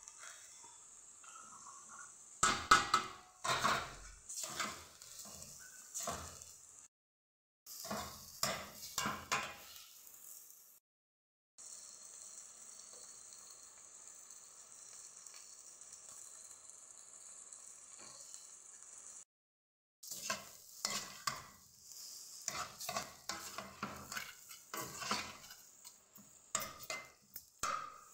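Diced chicken sizzling in fat in a stainless steel pot, with a metal spoon stirring and scraping against the pot in bursts of clanks. The sound cuts out abruptly three times, and a stretch in the middle holds only the steady sizzle.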